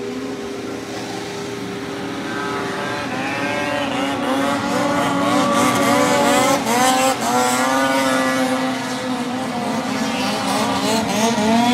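Engines of several racing craft running flat out across the water. Their whining tones rise and waver in pitch as they come closer and pass, loudest about halfway through.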